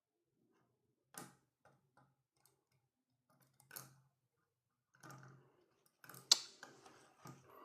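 Scattered small clicks and taps from handling electronic kit parts and tools during soldering work, a few seconds apart, with the sharpest click about six seconds in.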